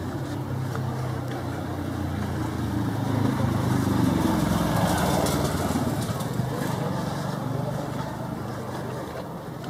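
A motor vehicle's engine running on the road close by, a low steady hum that grows louder to a peak about four seconds in and then fades as it passes.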